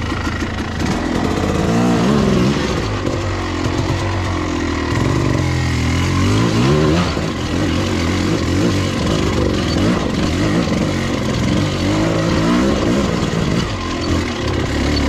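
1995 KTM 300 two-stroke dirt bike engine revving up and down, its pitch rising and falling several times, as the rider slips the clutch to work the bike through a wet, slick rut.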